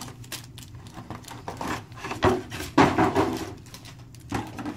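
Trading cards and their box packaging being handled: light knocks, clicks and rubbing scrapes, busiest about two to three seconds in.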